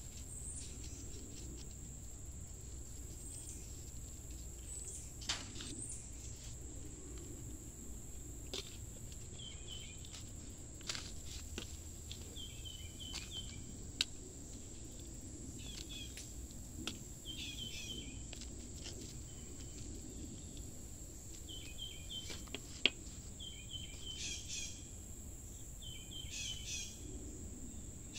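Garden ambience: a steady high insect trill, and a bird repeating short chirping phrases, more often in the second half. A few sharp clicks and taps come from plastic nursery pots and potting soil being handled.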